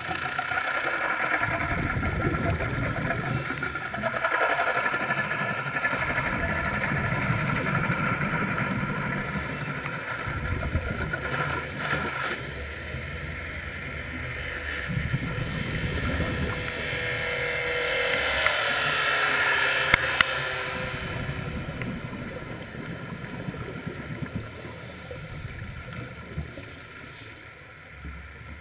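Muffled underwater noise picked up through a dive camera's housing: a low rumble and hiss that swells and fades, loudest about two thirds of the way in, with a faint falling tone at that point.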